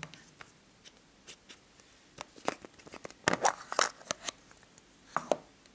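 Hollow plastic toy egg being handled and pulled apart. Its plastic halves click and rattle, with a burst of louder clacks a little over three seconds in and two more sharp clicks near the end.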